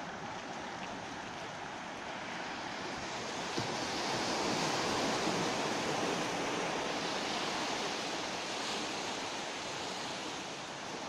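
Sea surf washing onto a rocky shore, heard as a steady rushing with wind on the microphone. It swells about four seconds in, then eases back.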